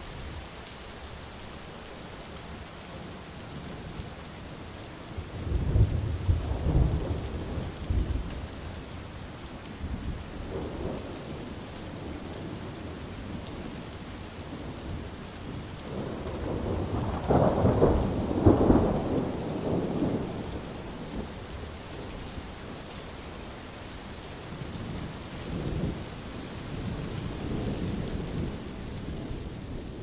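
Steady rain with rolling thunder: a rumble about five seconds in, a louder, longer peal around the middle lasting several seconds, and a softer rumble near the end.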